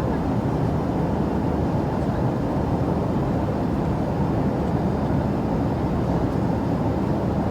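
Steady rumble and rush of an airliner cabin in flight, engine and airflow noise holding even throughout.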